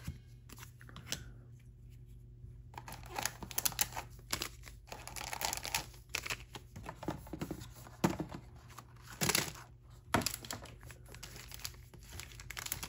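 Trading card pack wrappers crinkling and tearing as packs are opened and the cards handled: a few soft clicks at first, then a run of sharp crackles from about three seconds in.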